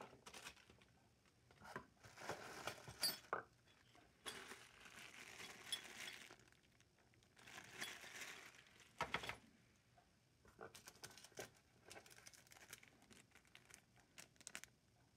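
Plastic zip-lock bag crinkling as it is handled, with light metallic clinks from the metal mounting brackets inside. Three spells of crinkling in the first ten seconds, then scattered small clicks and rustles.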